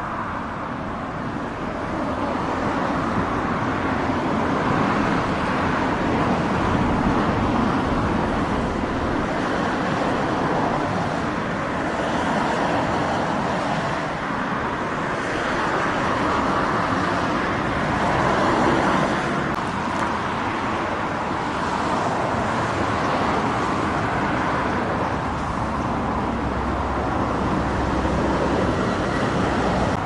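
Steady road traffic noise, cars passing with gentle swells in loudness.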